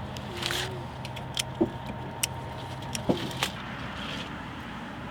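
A steady low engine hum that stops about three and a half seconds in, with scattered sharp clicks and knocks over it.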